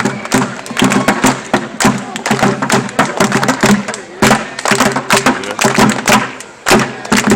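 Protest crowd: fast, irregular drumming or banging, several hits a second, mixed with voices.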